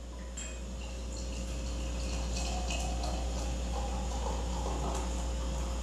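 Beer pouring from a glass bottle into a stemmed glass, a continuous splashing gurgle that builds as the glass fills and foams.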